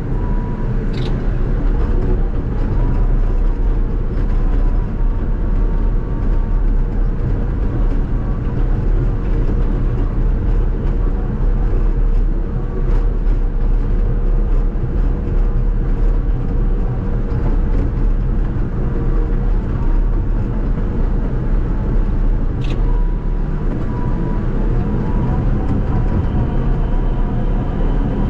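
Caterpillar D6K2 XL bulldozer running steadily: a low diesel drone with a steady whine over it and an occasional sharp click.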